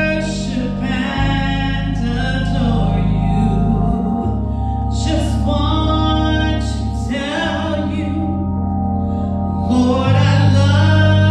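Woman singing a gospel song while accompanying herself on a two-manual organ. Sustained organ chords underneath, with the bass note shifting every few seconds.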